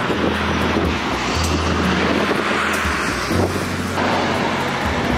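Jet engines of a Peach airliner running on the runway: a steady, even rushing noise. A background music bass line steps along underneath.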